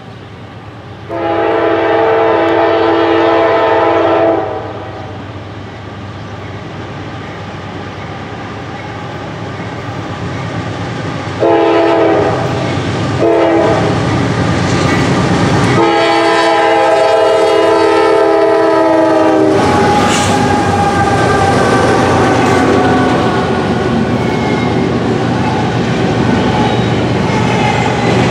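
Norfolk Southern GE AC44C6M diesel locomotive's air horn sounding four chord blasts, long, long, short, long: the grade-crossing signal. Between the blasts the approaching train grows steadily louder. In the second half the locomotives and then the double-stack container cars pass close by with a steady rumble and rattle of wheels on rail.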